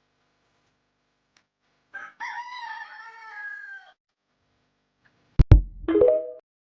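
A rooster crowing once for about two seconds. A few seconds later come two sharp knocks, then a short squawk.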